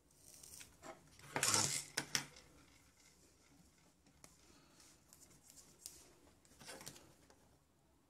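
Clattering and scraping as the Bluetooth speaker's plastic housing and circuit board are handled on a workbench mat: a louder scrape about a second and a half in, then a few soft clicks and taps.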